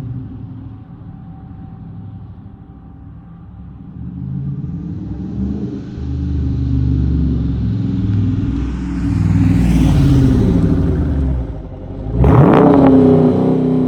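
Dodge Charger Daytona's Hemi V8 exhaust through dual Jones Turbine JR20 mufflers while driving on the street. The engine note climbs steadily under throttle, dips briefly, then a sudden sharp rev near the end falls away in pitch.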